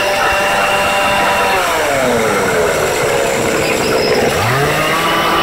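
Ryobi ES 2930 two-stroke engine chainsaw running fast, then its speed sinking away over about a second, and revved back up sharply about four seconds in.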